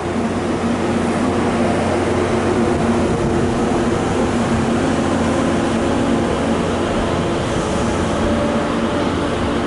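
Metro-North passenger train's coaches rolling slowly past alongside a station platform: a steady rumble with a low mechanical hum underneath.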